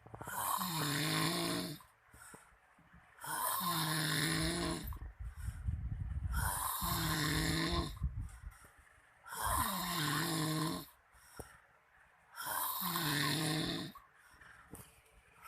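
A man snoring really loud: five long, rasping snores about three seconds apart, each carrying a low pitched drone, with quieter breathing between them.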